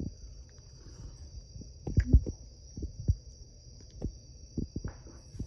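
Soft knocks and handling of a ceramic tea mug as it is sipped from and set back down on its coaster, the loudest knocks about two seconds in. A steady high-pitched tone runs beneath.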